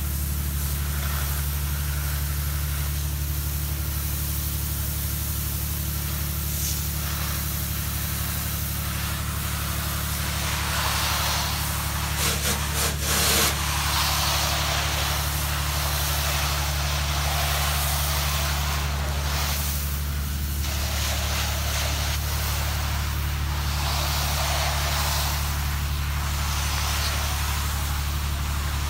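A soft-wash sprayer rig's pump motor running steadily with a low hum, while the spray hisses, swelling and fading as it plays over a surface. There are a few brief knocks near the middle.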